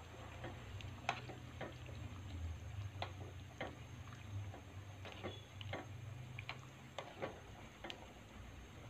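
A metal spoon stirring in a pan of simmering coconut-milk vegetable stew, clicking irregularly against the pan about twice a second over a low steady hum.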